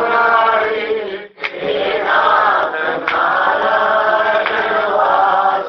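Devotional chanting sung in long held notes, with a brief break a little over a second in.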